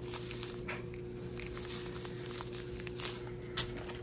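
Clear plastic bag of round diamond painting drills being handled and squeezed: the plastic crinkles lightly and the drills shift and click against each other inside, with two sharper clicks near the end. A steady low hum runs underneath.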